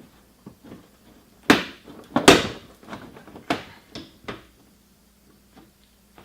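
A plastic car bumper cover being worked loose and pulled off by hand, with a run of knocks and rattling thumps, the loudest about two seconds in, then a few lighter knocks.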